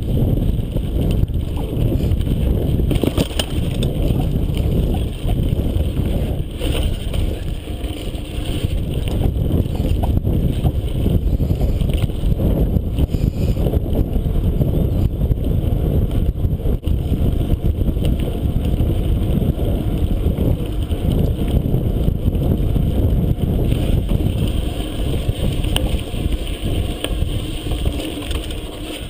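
Mountain bike ridden over a bumpy dirt forest trail, heard from a GoPro Hero HD mounted on the rider or bike: a steady low rumble of tyres and wind on the microphone, with constant small rattles and knocks from the bike over the rough ground.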